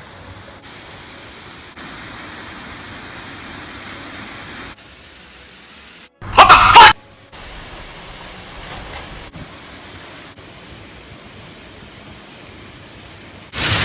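Steady rushing of a waterfall, broken by abrupt jumps in level. About six seconds in there is a single loud, short burst lasting under a second, louder than anything else.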